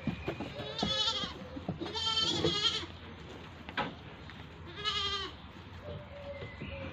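Three quavering animal cries, each wavering in pitch: a short one about a second in, a longer one around two seconds in, and a short one around five seconds in, with a sharp tap just before four seconds.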